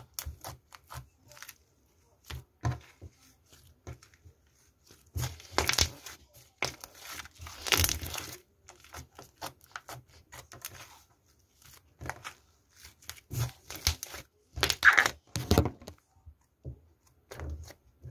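White slime being squeezed and pressed by hand, making irregular bursts of crackling noise with short pauses between them. The loudest bursts come about six, eight and fifteen seconds in.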